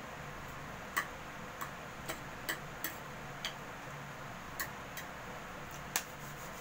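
Metal fork clinking against a plate while twirling spaghetti: about nine sharp, irregular clinks, the loudest one near the end.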